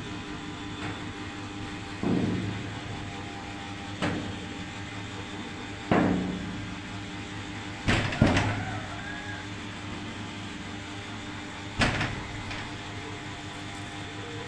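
A series of sharp knocks or thumps, roughly every two seconds with two close together about eight seconds in, each dying away quickly, over a steady background hum.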